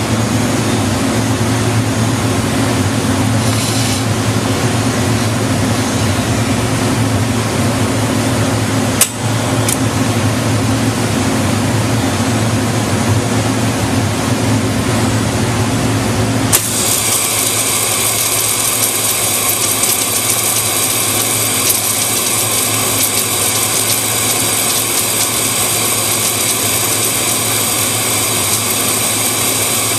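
Lincoln Electric submerged arc welding system running while flux is laid around the torch: a steady machine hum, with a sharp click about nine seconds in. About sixteen seconds in, the sound switches suddenly to a louder hiss with a high steady whine, and the low hum drops away.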